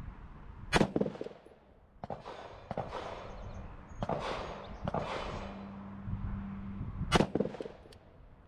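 AR-15 rifle in 5.56/.223 fired twice, slow aimed single shots about six seconds apart, each a sharp report with a short ringing tail; these are shots of a zeroing group. Fainter sharp sounds come between the two shots.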